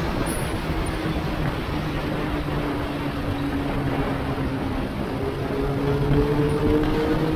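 Yamaha FZ6 inline-four motorcycle engine running at cruising speed under heavy wind rush on the camera. The engine note sags a little midway, then climbs and gets louder in the last couple of seconds as the bike speeds up.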